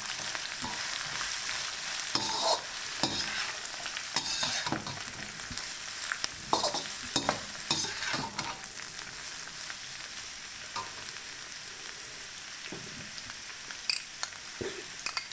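Sliced vegetables sizzling in hot peanut oil in a large pan while being stirred. The utensil scrapes and knocks against the pan, more often in the first half, over a steady frying hiss.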